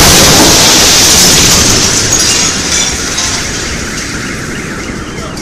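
Shock wave from the Chelyabinsk meteor's airburst arriving: a sudden, overwhelming boom that overloads the microphone, then a rumbling roar that slowly fades over the next few seconds.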